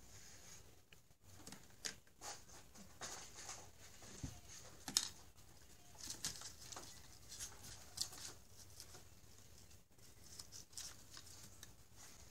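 Scattered light rustles and taps as a cat swats from inside a cardboard box at a dangling plastic balloon ribbon, its paws brushing the cardboard and the ribbon crinkling. One sharper tap about five seconds in is the loudest.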